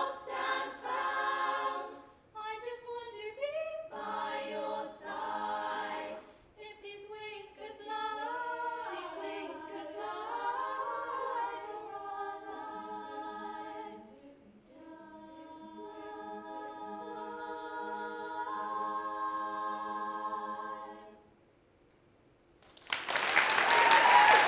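All-girl a cappella choir singing in close harmony, ending on a long held chord over a repeated low note. After a short silence, audience applause breaks out near the end.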